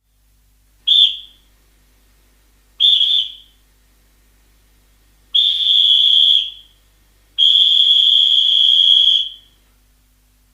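Referee's whistle blown four times: two short blasts, then a longer one, then a long blast of nearly two seconds. Each blast is a steady high tone.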